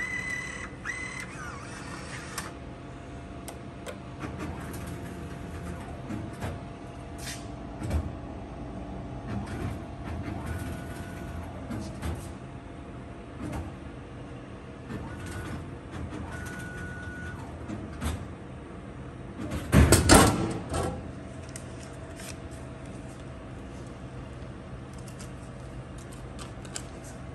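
Royal Vendors Model 8000 can vending machine taking a dollar bill: a short whirr from the bill validator near the start over a steady machine hum, scattered small knocks, then about three-quarters of the way through a loud clatter lasting about a second as a can drops through the vend mechanism into the delivery chute.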